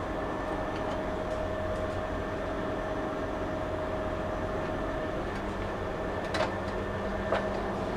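Steady machinery hum with a faint whine, typical of running refrigeration or ventilation equipment, broken by two sharp clicks near the end.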